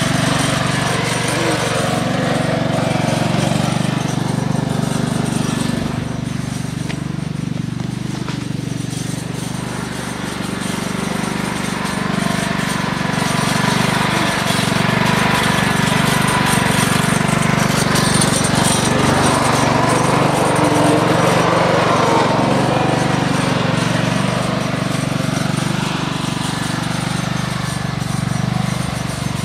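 Riding lawn mower's engine running steadily as it is driven, growing a little quieter for a few seconds about a third of the way in.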